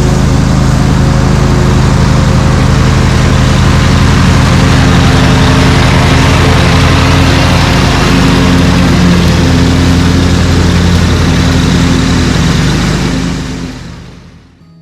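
A combustion engine running loudly at a steady speed with a rapid low pulsing, fading out near the end.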